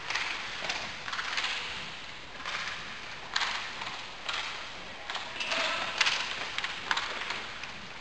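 Roller hockey play: skate wheels swishing in surges over the rink floor, with a few sharp clacks of sticks and ball or puck.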